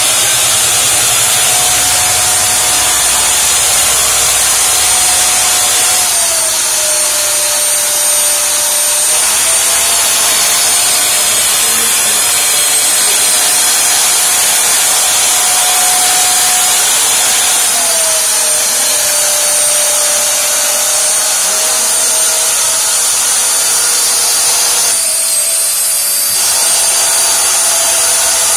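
Two 1500 W vacuum motors running flat out, pulling air through two suction pads: a loud, steady rush of air with a whine over it. The whine dips in pitch three times, around a quarter, two-thirds and nine-tenths of the way through.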